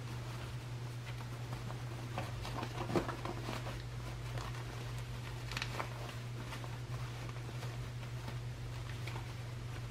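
Soft rustling of cotton fabric as a sewn baby bonnet is handled and turned right side out by hand. A soft tap comes about three seconds in, over a steady low hum.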